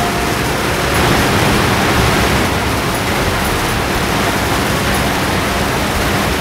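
Steady rushing of water pouring over a spillway into the river.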